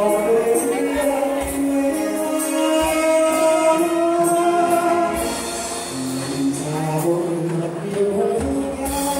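Two male vocalists singing a Thai luk thung song live, trading lines and holding long notes over a band of keyboard, drums and bass guitar, with steady cymbal strokes.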